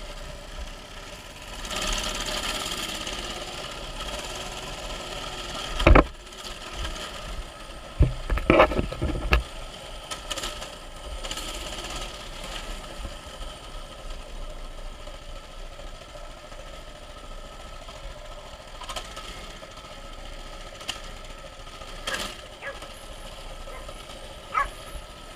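Small mini bike engine running steadily as the bike is ridden, with a sharp thump about six seconds in and a cluster of knocks and bumps around eight to nine seconds.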